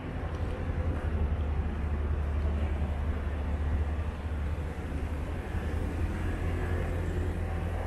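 Steady low engine rumble of an idling airport apron bus, with the general hum of the apron around it.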